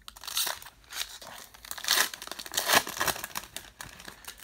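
Foil wrapper of a baseball trading-card pack crinkling as it is handled and torn open by hand, in several irregular bursts, the loudest about two seconds and nearly three seconds in.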